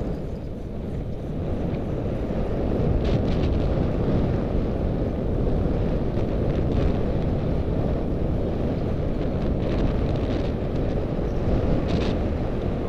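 Wind buffeting the microphone of a camera on a moving electric bike, a steady low rumble of wind and road noise, with a few faint clicks or rattles.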